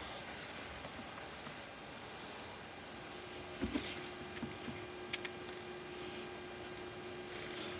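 Small screws clinking in a hand and light handling of a cordless drill/driver: a few soft clicks and taps, with one sharp click about five seconds in. A faint steady hum comes in about three seconds in.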